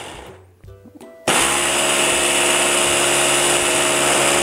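SEMP Easy MX6018 hand-blender motor driving its empty chopper bowl. It winds down at the start, a few faint clicks follow, then about a second in it starts again and runs at a steady whine.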